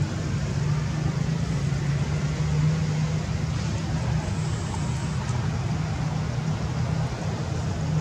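A steady low mechanical hum, like a motor running nearby, continuing without a break.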